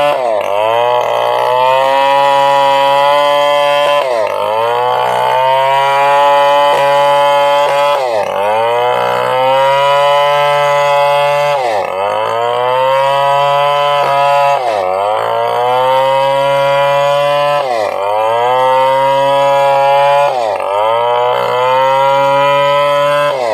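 Stihl chainsaw running hard while cutting lengthwise through a coconut palm trunk, its engine pitch sagging sharply under load and climbing back about every three to four seconds.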